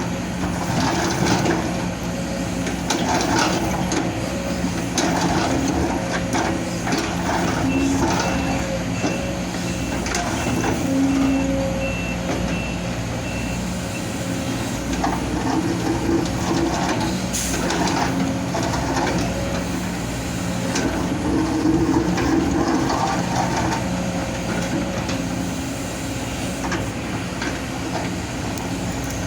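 Heavy diesel machinery running steadily with repeated clanks and scrapes of rock and earth: an excavator at work. A reversing alarm beeps evenly for about six seconds, starting about eight seconds in.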